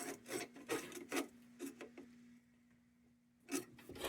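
A series of short rubbing and tapping strokes on thin sheet metal as a dent in an old kerosene lantern is worked gently back into shape. The strokes come quickly for about two seconds, pause, and two more come near the end, over a faint steady hum.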